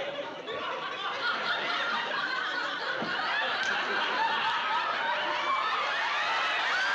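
A large studio audience laughing, many voices at once; the laughter swells about a second in and then holds steady.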